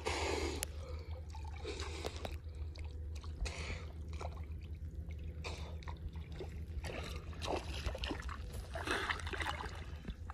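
Muddy water sloshing and trickling in irregular small splashes, as someone wades in it, over a steady low rumble.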